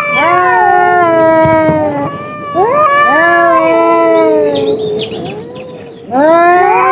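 Two cats caterwauling at each other in a fight standoff: long, wavering, overlapping yowls, with a brief pause about two seconds in, a lull near the end, and then a loud new yowl.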